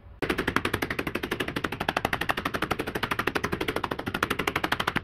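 Rapid, even mallet blows on a sheet-metal panel lying over a sandbag, about ten a second, starting a moment in. The metal is being stretched down into shape.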